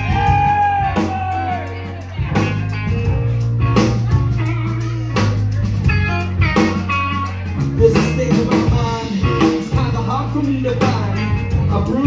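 Live rock band playing an instrumental passage: overdriven-free electric guitars, electric bass holding long low notes and a drum kit keeping a steady beat.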